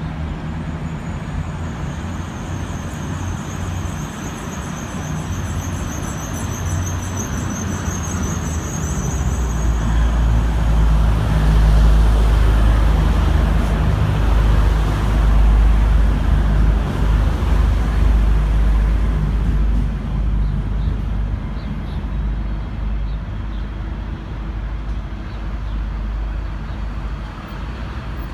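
V/Line N class diesel-electric locomotive engine running, a deep rumble that grows louder about nine seconds in, stays up for about ten seconds, then eases off. A faint high pulsing whine sits above it for the first ten seconds or so.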